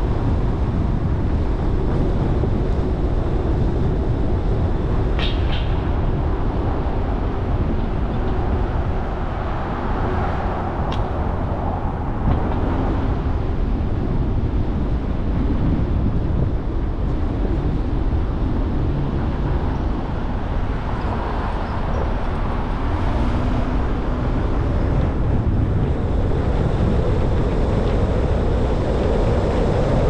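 Steady road and traffic noise from driving through city streets: a continuous low rumble of car engines and tyres, with a brief high squeal about five seconds in.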